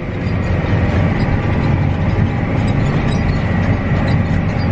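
Tractor engine running steadily under load while pulling an anhydrous ammonia toolbar through the field at about 7.5 to 8 mph, with some light rattling from the implement.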